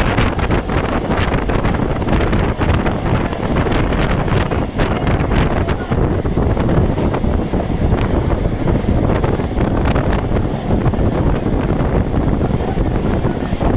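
Wind blowing hard across the microphone on a moving train, over a steady low rumble.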